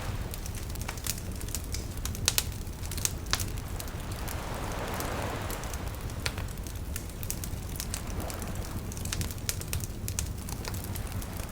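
Wood campfire crackling, with frequent sharp pops and snaps scattered irregularly over a steady low rumble. A soft rushing swell rises and fades about four to six seconds in.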